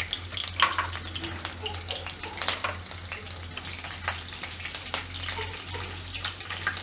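Cumin seeds and chopped green chillies sizzling and crackling in hot oil in a nonstick wok, the tempering stage of the dish, with a silicone spatula stirring them partway through.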